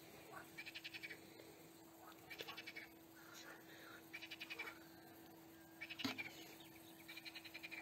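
Frog calling at night: four short trills, each a rapid series of pulses, repeated roughly every two seconds. A faint steady hum runs underneath, and a single knock sounds about six seconds in.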